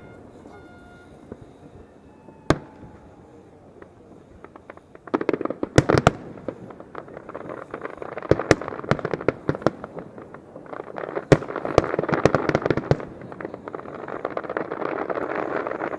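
Fireworks display: a single bang, then from about five seconds in a dense run of sharp pops and crackling bursts that comes in waves.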